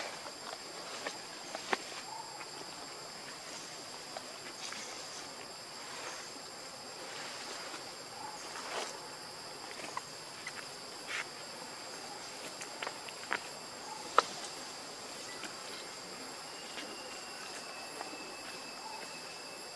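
Insects calling in a steady high-pitched drone, with scattered sharp clicks and small rustles over it; the loudest click comes about fourteen seconds in.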